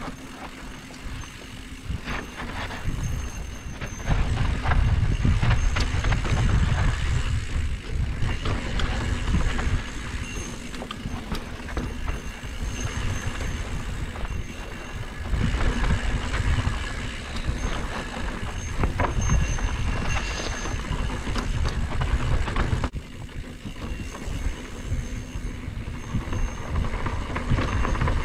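Mountain bike ridden fast down dirt singletrack: a heavy, uneven rumble of wind buffeting the helmet or handlebar camera's microphone and tyres rolling over the dirt, with scattered clicks and rattles from the bike over bumps.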